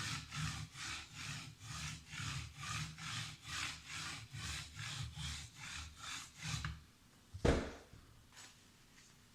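Kitchen knife blade stroked back and forth on an oiled Arkansas soft stone in a guided angle sharpener, a rhythmic scraping of about three strokes a second. The strokes stop about seven seconds in, and a single knock follows shortly after.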